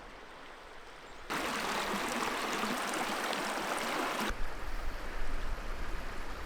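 River rapids rushing: a loud, even noise that cuts in sharply about a second in and cuts off about three seconds later. Fainter water noise with a low rumble follows.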